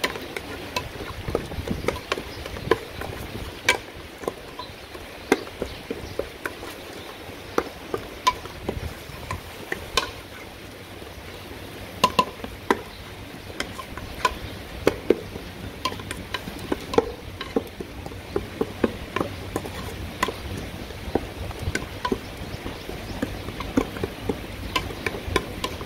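Wooden spatula scraping and knocking against the sides and bottom of an aluminium pot, stirring a ground paste of garlic, galangal and coriander root frying in oil with a light sizzle. The knocks come irregularly, several a second, over a steady low rumble.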